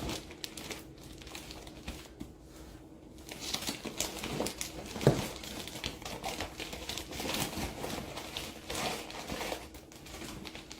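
A plastic bag crinkling and rustling in irregular bursts as compressed plushies are pushed into it, with one sharper knock about five seconds in.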